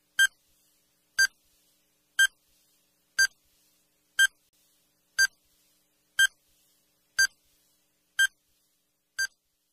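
Countdown timer beeping once a second: short, high beeps with silence between, ticking off a ten-second countdown.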